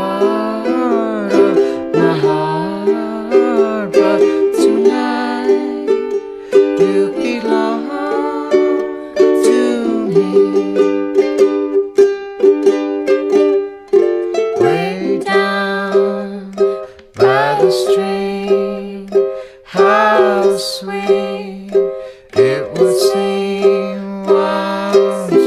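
Music: a slow song played on ukulele, with plucked chords ringing out in a steady, gentle rhythm.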